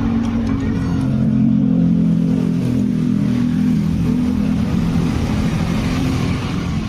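An engine running steadily with a low hum that swells over the first couple of seconds and eases off after about five seconds.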